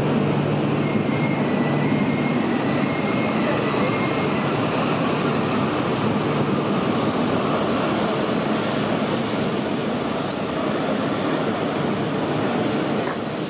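E6 series Akita Shinkansen train moving slowly past the platform: a steady rush of wheel and running noise with a low hum, and a faint high whine for the first few seconds.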